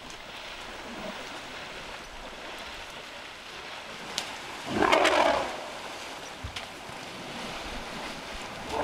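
Elephant splashing in a pond, its trunk throwing water: one loud splash about halfway through and a smaller one near the end, over a steady rush of water and wind.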